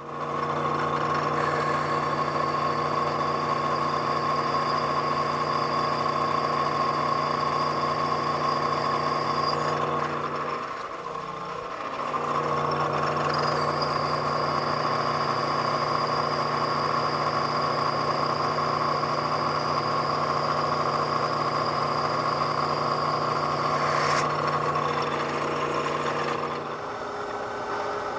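Milling machine spindle running steadily while drilling mounting holes, a fixed-pitch motor hum and whine. It dips briefly about ten seconds in and comes back up, then changes pitch and level near the end.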